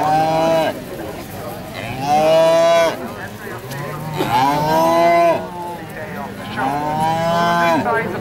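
Cattle mooing, four long moos about two seconds apart.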